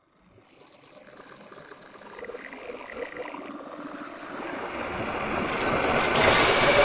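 Designed glitch flutter swoosh sound effect: a rushing, fluttering whoosh broken up by digital glitching, swelling from nothing to loud over about six seconds.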